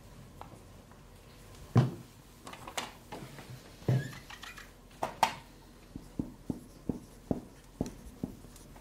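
Marker tapping and knocking against a whiteboard as a word is written, with a few heavier thumps from the wobbly board, the loudest about two seconds in, then a quick run of light ticks.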